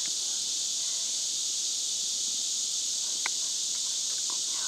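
Steady, high-pitched chorus of insects buzzing in the woods, with a few faint clicks.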